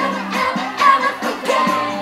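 Upbeat pop song playing, with sung vocals over a steady beat.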